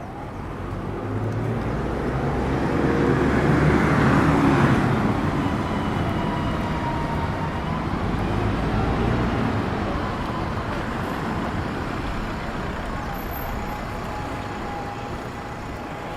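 A motor vehicle drives past, its engine rumble and tyre noise growing to loudest about four seconds in, then fading slowly.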